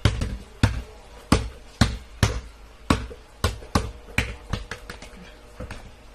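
A basketball being dribbled on a hard bare floor: a steady run of sharp bounces, about two a second, growing fainter after about four seconds.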